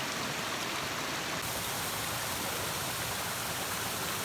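Waterfall rushing, a steady even sound of falling water.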